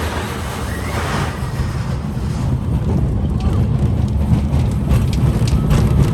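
Roller coaster train rumbling and rattling along its track, growing louder, with wind buffeting the microphone.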